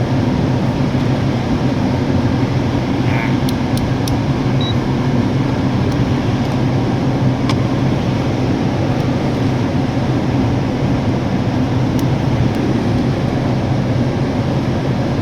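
Steady low mechanical hum from machinery running in the background, with a few faint clicks.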